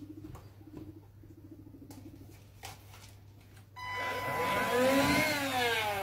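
Vacuum cleaner switched on about four seconds in, its motor whine climbing in pitch and then starting to fall away near the end. Before it there are light clicks and knocks of things being handled.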